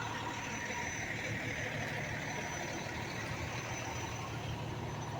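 Fire engine idling with a steady low drone.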